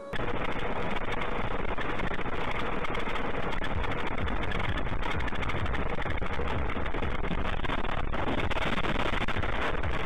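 Steady road and engine noise inside a moving car, heard through a dashcam's microphone, with a low rumble. It starts abruptly.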